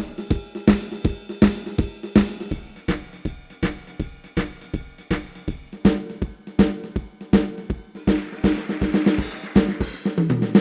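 Sampled Ketron SD90 drum kit from an SF2 soundfont playing a steady, quick groove of kick, snare and pitched drum hits. A cymbal wash comes in about two seconds before the end, and a drum fill falls in pitch just before it ends.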